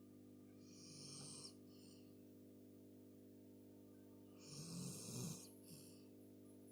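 A sleeping person snoring: two snores about three and a half seconds apart, the second one louder and longer.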